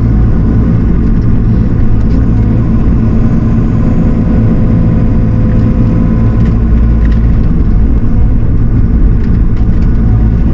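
Heavy equipment engine running steadily at a constant speed, a low droning hum, with a few faint knocks and clanks in the background.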